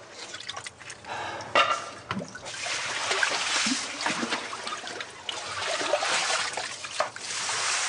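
Water splashing and running off a metal bucket as sewer water is bailed out of a drain hole, with a few knocks of the bucket in the first couple of seconds.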